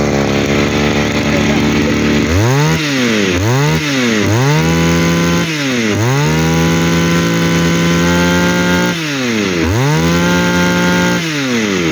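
Komatsu two-stroke brush cutter engine idling for about two seconds, then revved five times: two quick blips, then the throttle held open for about one, three and one second, each time falling back toward idle. The seller rates its compression very good and the engine sound.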